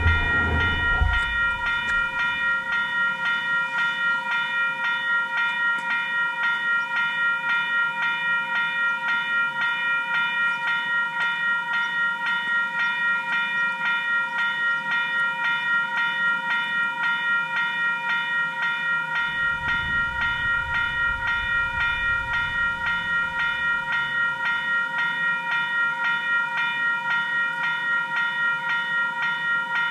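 Level-crossing warning bell ringing steadily at about two strikes a second, the signal that a tram is approaching and the crossing is closed. A low rumble passes under it about twenty seconds in.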